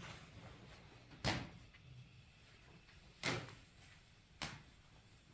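Three separate knocks, each with a short ring-out: two about two seconds apart, then a weaker one a little over a second later.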